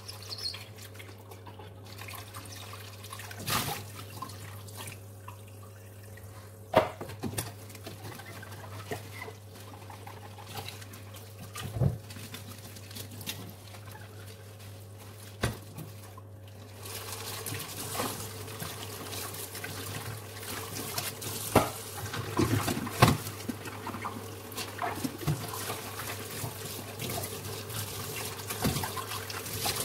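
Kitchen tap running into a sink while cookware is washed by hand, with scattered clinks and knocks of pot lids and a mug against the sink and each other. The water gets louder a little past halfway.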